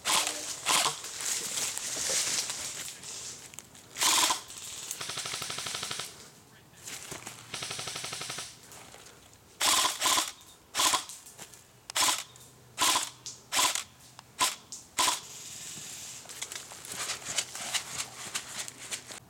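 Airsoft rifles firing: scattered single shots, two longer rapid full-auto bursts about five and eight seconds in, then a run of single shots spaced roughly half a second to a second apart.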